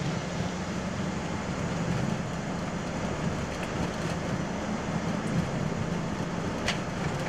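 Airbus A220 on its takeoff roll at takeoff thrust, heard from the flight deck: a steady rush and rumble of its Pratt & Whitney PW1500G geared turbofans and wheels on the runway as it accelerates past 80 knots toward rotation.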